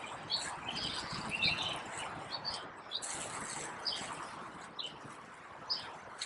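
Small birds chirping, many short high calls scattered throughout, over a steady low hiss.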